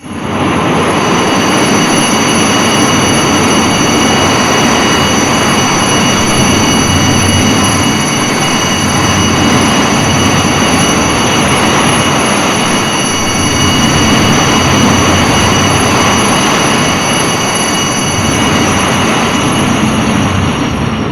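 Rodan monster sound effect: a loud, steady rushing roar with several high, steady whining tones over it, starting suddenly and fading out at the end.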